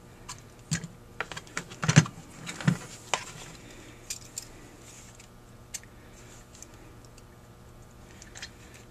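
Small metal clicks and taps from handling a Rochester 4GC carburetor throttle body while fitting throttle plates into the primary shafts, with plates, shafts and the casting knocking lightly. A quick run of clicks comes in the first three seconds, loudest about two seconds in, followed by a few scattered clicks.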